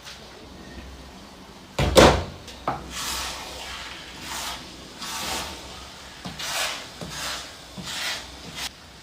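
A spoon mixing rice in a cooking pot: a loud clatter about two seconds in, then a steady run of scraping swishes, about one or two a second.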